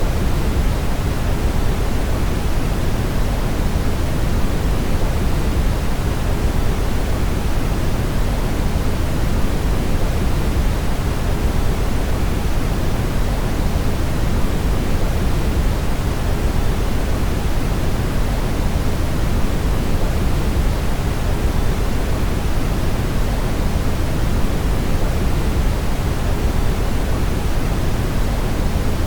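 Brown noise: a steady, unchanging rushing rumble, heaviest in the deep bass and thinning out toward the highs.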